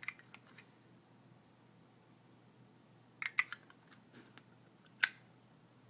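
Scattered small clicks and taps from handling metal Zippo lighters, with a short cluster about three seconds in and one sharper click about five seconds in.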